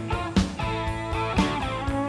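A band playing an instrumental section: lead guitar with bent notes over a steady beat, with sharp drum hits about once a second.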